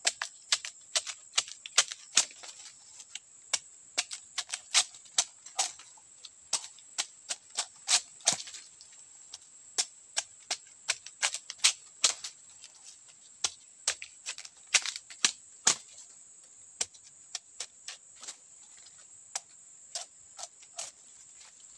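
Repeated sharp knocks of a knife blade chopping at the base of a bamboo shoot, irregular strikes about two or three a second that thin out near the end.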